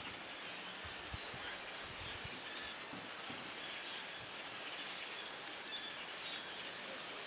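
Steady distant din of a large flock of small black birds calling all at once, with a few higher chirps standing out now and then.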